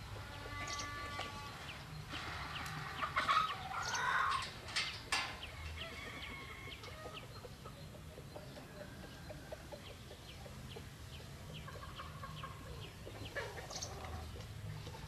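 Chickens clucking, with a rooster crowing loudest between about two and a half and five seconds in. A single sharp click comes about five seconds in, and short high chirps follow.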